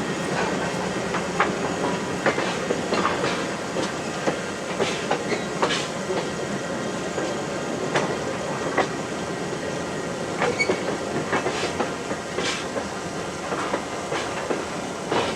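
A train rolling along the track: a steady rumble with irregular sharp clicks and knocks from the wheels on the rails.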